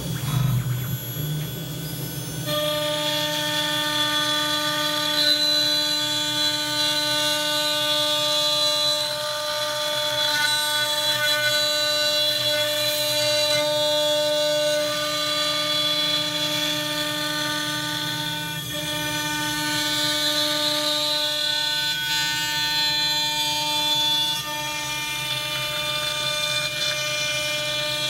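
CNC router spindle running with a steady whine as its end mill cuts the outer perimeter through walnut; the whine sets in about two and a half seconds in.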